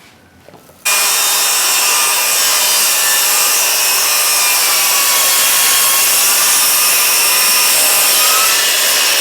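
Power saw cutting a piece of wooden trim: a loud, steady cutting noise that starts abruptly about a second in and holds.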